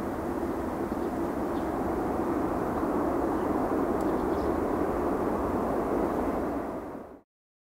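Boeing 747-400 freighter's jet engines rumbling steadily during the landing roll, heard across the airfield; the sound fades out and cuts to silence near the end.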